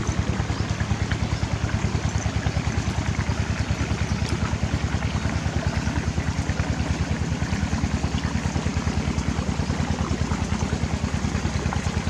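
An engine running steadily: a low hum with a fast, even pulse that does not change.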